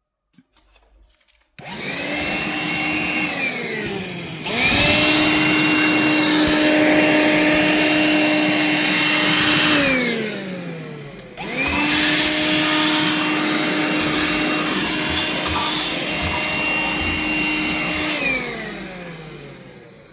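Vacuum cleaner switched on three times, its motor running with a steady whine and rush of air, the pitch falling as it winds down after each run.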